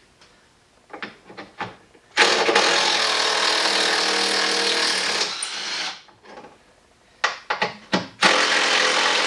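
Cordless power driver running on the headlight-mount fasteners in two long bursts: one of about three and a half seconds, and a second starting near the end. Between them come a few sharp clicks as the tool is set on the fastener.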